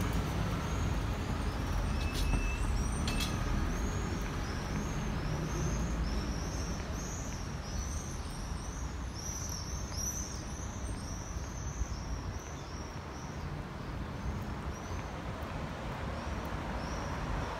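Street ambience of steady low traffic rumble, with a small bird chirping over it again and again, about two high chirps a second, from a few seconds in until near the end.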